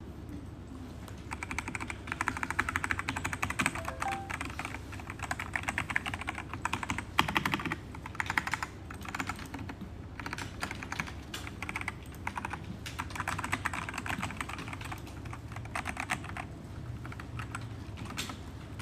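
Typing on a Machenike K500 B84 mechanical keyboard: fast runs of key clicks in bursts, with short pauses between them and a few louder keystrokes.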